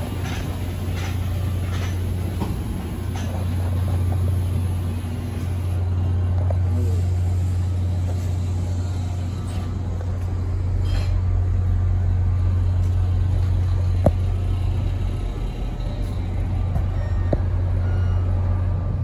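EMD GP40 diesel locomotive idling with its passenger train standing at the station, a steady low rumble with no change in pitch.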